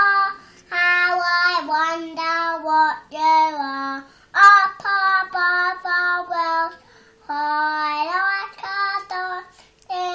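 A three-year-old boy singing a nursery rhyme in sustained, pitched notes, in phrases broken by short pauses about 4 and 7 seconds in.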